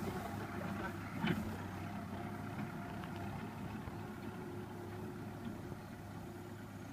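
Tractor engine running steadily as it pulls a trailer away, growing gradually quieter, with a short knock about a second in.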